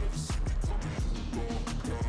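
Background music with a steady beat: a heavy bass line and regular drum hits under a melody.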